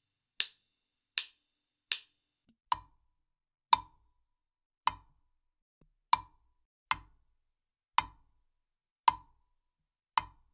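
Drumsticks clicked together three times, sharp and high. From about three seconds in, a click block is struck eight times at roughly one hit a second, each a short pitched knock.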